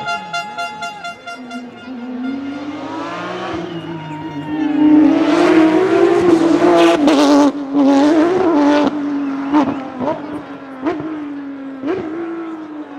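A rally car at full throttle approaches, its engine revving hard through several gear changes with sharp bangs from the exhaust. It is loudest from about five to nine seconds in, then the note drops away as it passes.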